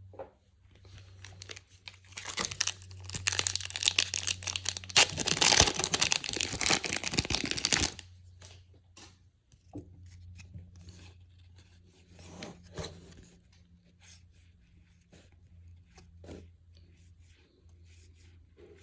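A foil pack of baseball cards being torn open, its wrapper crackling and crinkling for several seconds and cutting off sharply about eight seconds in. After that come soft taps and rustles of the cards being handled.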